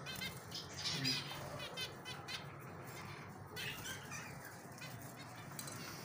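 Faint bursts of quick, high, squeaky cheeping from birds in a pigeon loft, coming in several short runs over a steady low hum.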